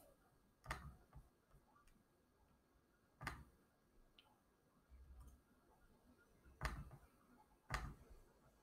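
Four faint, sharp computer mouse clicks, a second or more apart, over near silence.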